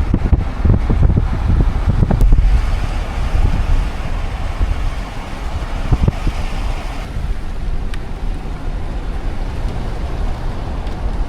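Wind buffeting the microphone over the low rumble of road and vehicle noise, gusty for the first couple of seconds and then steadier.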